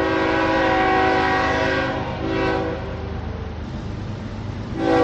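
Train horn blowing: a long steady blast of about two seconds, a short blast just after, and another starting near the end, over a low rumble.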